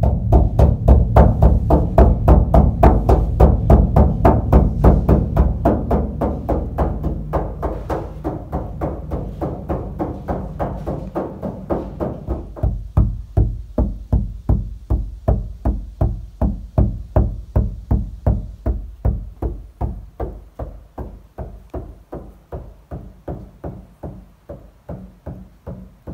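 Steady rhythmic tapping on a Toyota LandCruiser 79 Series' sheet-metal roof panel, several knocks a second, as a tap test of the sound deadening. For about the first twelve seconds each tap rings on with a low boom. After that the taps turn duller and quieter: the roof is now covered with deadener and no longer rings.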